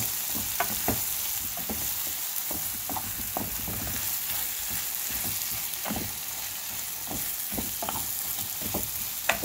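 Flaked saltfish with onion, tomato and sweet pepper sizzling in a frying pan, stirred with a wooden spoon that scrapes and taps against the pan at irregular intervals.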